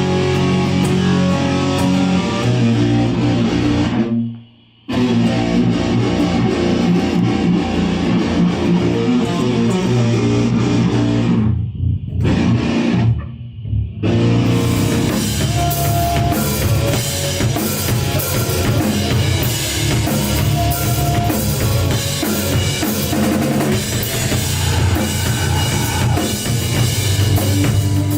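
A rock band playing live: electric guitar over bass and drum kit. The band stops dead for under a second about four seconds in, and breaks off twice more briefly around twelve to fourteen seconds in before carrying on.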